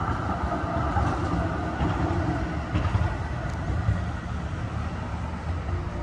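Steady outdoor city ambience, mostly the low rumble of road traffic.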